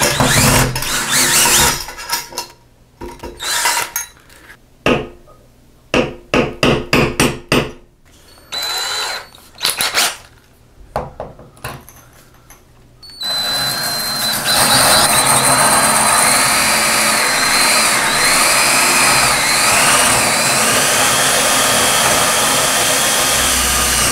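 A cordless drill runs briefly at the start, backing a screw out of the grab bar's flange, followed by scattered knocks and clatter of handling. From about 13 seconds in, the drill bores steadily into ceramic wall tile, a continuous grinding noise with a high thin whine over it.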